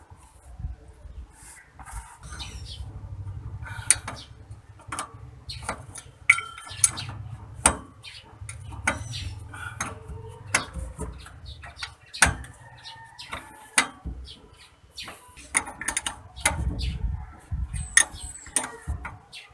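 Hand tools and metal parts clinking and knocking irregularly during work on a differential, with some low handling noise.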